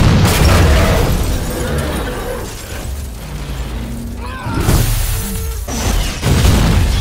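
Film action soundtrack: explosion rumble and crashing debris mixed with dramatic score music. There are loud hits at the start, about four and a half seconds in, and a fresh blast about six seconds in.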